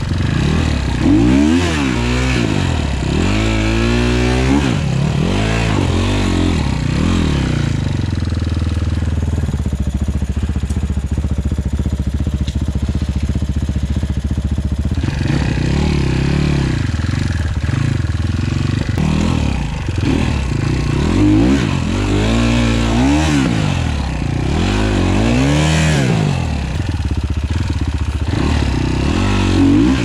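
Off-road dirt bike engine heard up close from the bike itself, revving up and down over and over as the rider works the throttle through a twisty trail, with a steadier stretch about a third of the way through.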